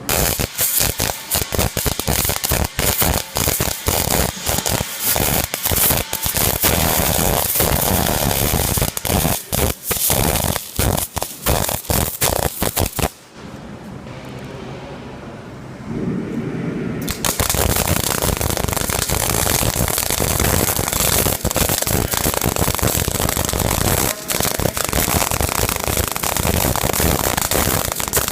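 MIG welder's arc crackling and sputtering as a bead is run, with a break of a few seconds about halfway through before the arc strikes up again.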